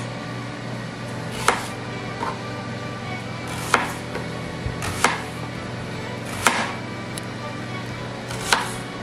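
Kitchen knife slicing a red onion on a plastic cutting board: about five sharp chops a second or two apart, over a steady low hum.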